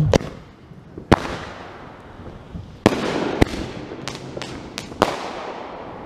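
Consumer aerial fireworks bursting overhead: about eight sharp bangs at irregular intervals, with crackling after one about three seconds in.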